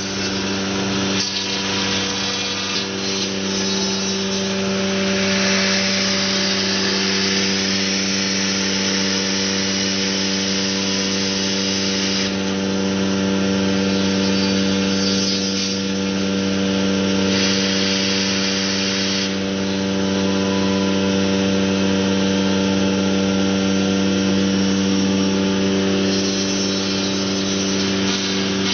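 Industrial CNC machine running: a steady motor hum, with a cutting hiss that swells and fades in stretches as the tool works the material.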